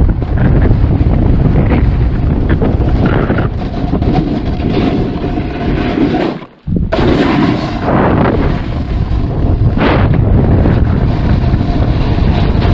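Loud, rough wind buffeting on the microphone mixed with a snowboard scraping over snow during a run. The noise cuts out briefly about six and a half seconds in, then returns.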